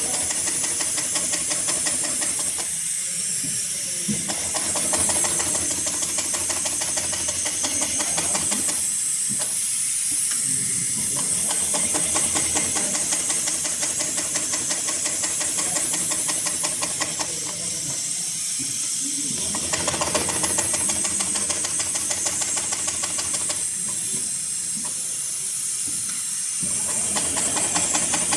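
Heavy-duty triple-feed straight-stitch industrial sewing machine (7243CS) stitching thick polyester and nylon sling webbing: a fast, even run of needle strokes over a steady hiss. The machine runs in stretches that ease off briefly four times.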